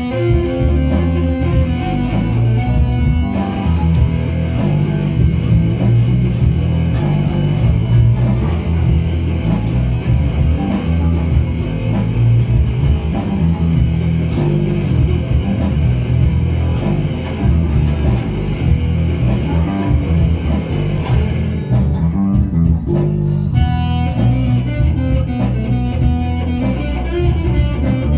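Electric guitar and bass guitar playing a loud rock riff together. The guitar's higher notes drop out for a moment about three-quarters of the way through, then come back in.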